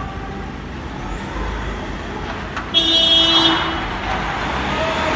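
A vehicle horn sounds once, a steady blast about a second long starting near the middle, over a background of street noise.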